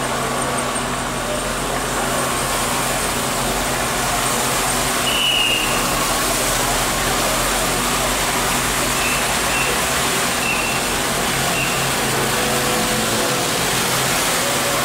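Steady street noise of motor vehicles, with engines idling and running, and a few short high chirps around the middle.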